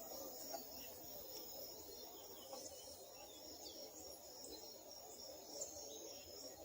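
Faint, steady chorus of insects, crickets or similar, trilling high, with a few short bird chirps over it and a soft low hiss beneath.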